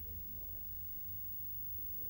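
CRT television running: a low steady hum with faint, indistinct sound from its speaker.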